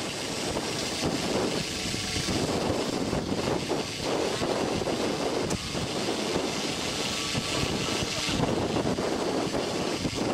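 Longline fishing boat's engine and line hauler running with a steady mechanical drone, with wind noise on the microphone.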